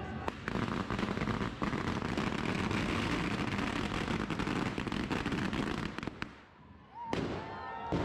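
Firecrackers going off in a rapid, dense string of sharp cracks and bangs for about six seconds, then stopping.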